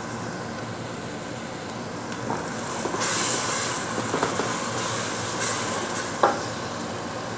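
Wooden spoon stirring a sizzling mix of grated tomato, tomato paste and fried onions in an aluminium pot. The scraping and sizzling grow louder about three seconds in, with a single sharp tap about six seconds in.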